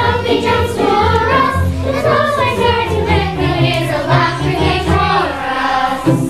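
A children's chorus singing together over instrumental accompaniment, a song from a stage musical.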